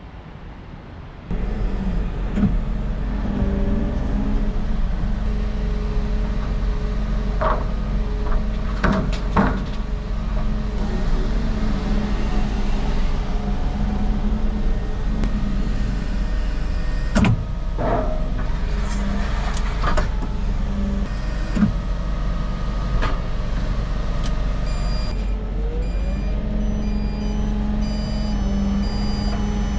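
A heavy vehicle's engine running steadily, coming in abruptly about a second in, with scattered knocks and clanks over it.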